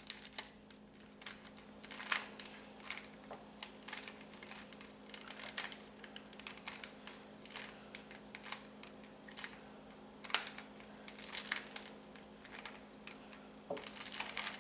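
Rubik's cube being twisted by hand: irregular small plastic clicks and clacks as its layers turn, with a steady low hum behind.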